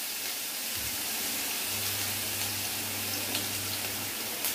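Freshly added chopped onion sizzling in hot mustard oil in a kadai, a steady frying hiss.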